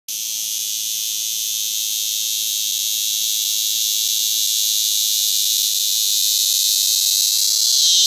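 Male cicada singing: a continuous high-pitched buzz that grows slowly louder, its pitch sinking slightly near the end.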